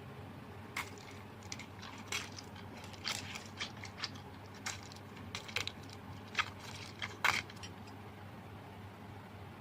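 Slime with mixed-in add-ins being squeezed and pressed by hand, giving an irregular run of sharp crackles and clicks for several seconds.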